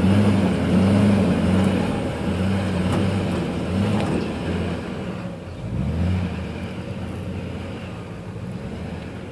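An engine running, its pitch wavering up and down, gradually fading toward the end.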